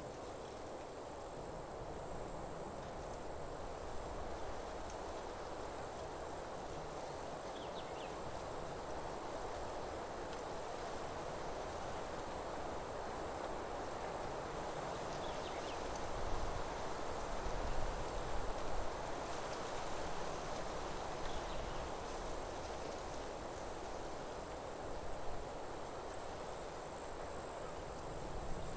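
Forest ambience: a steady, high-pitched chorus of insects trilling without pause over a constant rushing background, with a few low rumbles around the middle.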